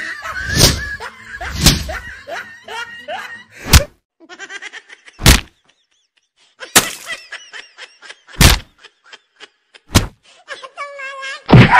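Staged fist fight: about eight loud punch and slap hits, spaced a second or two apart. Bursts of laughter come in between, the longest one near the end.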